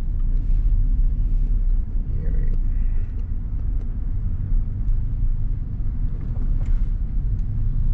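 Steady low rumble of a car driving, its engine and tyres on the road, heard from inside the cabin.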